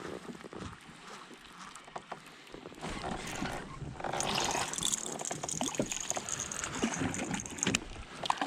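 Water splashing and dripping around a kayak, with small knocks and clicks, growing louder about halfway through.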